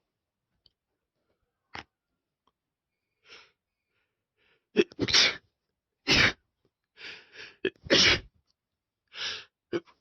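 A person sneezing three times in quick succession, set off by sniffed chhinkni (a sneeze-inducing herbal powder). Softer in-breaths come between the sneezes. The first sneeze comes about halfway in, after a nearly silent stretch with only a couple of faint sniffs.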